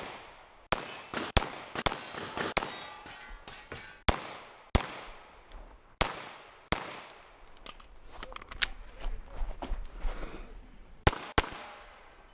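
A handgun fired in a competition string: sharp shots, mostly in quick pairs about half a second apart, with pauses of a second or more between pairs, each shot trailing off in echo.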